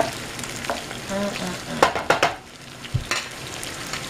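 Shrimp and sliced onions sizzling in hot oil in a frying pan, with a wooden spatula stirring them and scraping the pan, in a quick cluster of scrapes about halfway through and once more near the end.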